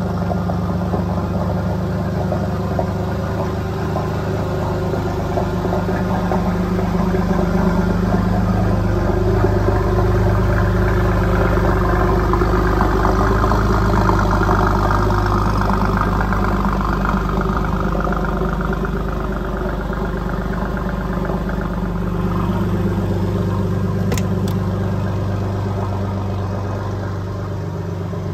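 Porsche 993 Turbo's twin-turbocharged air-cooled flat-six idling steadily, louder for a while in the middle.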